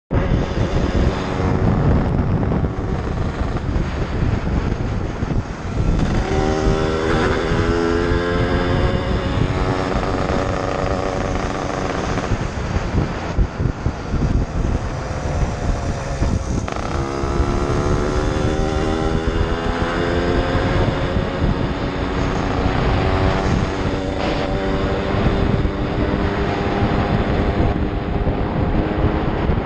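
Yamaha RD 135 two-stroke motorcycle engine on the move, revving up and changing gear, its pitch rising about six seconds in and again past the middle, with wind rumble on the microphone.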